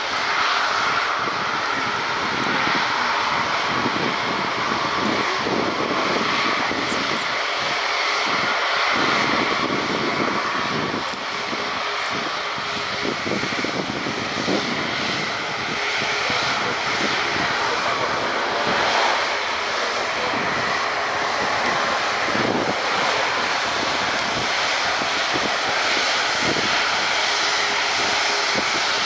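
Jet engines of an Airbus A340-600, its four turbofans, running as the airliner rolls out on the runway after landing and slows onto the taxiway. The noise is steady, with a whine that wavers slightly in pitch.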